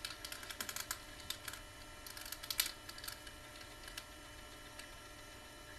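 Small plastic clicks and taps of a plastic action figure being handled and its stiff joints worked, coming quickly in the first three seconds and thinning out after, over a faint steady hum.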